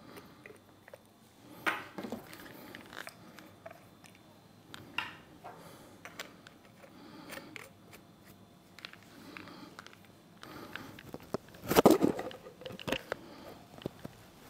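Metal hose fittings being unscrewed and screwed onto the stainless steel head of a brewing pump: scattered small clicks and scrapes of metal and thread, with a louder run of clicks and scrapes near the end as pliers grip a fitting.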